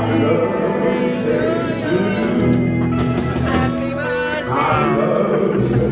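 A live band playing with a singer.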